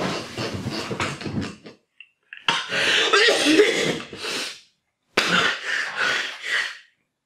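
A man laughing hard in three bursts of rapid pulses, separated by short, abruptly silent gaps.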